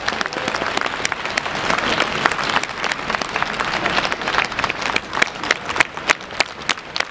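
A large crowd applauding, many hands clapping at once; near the end single sharp claps stand out more from the mass.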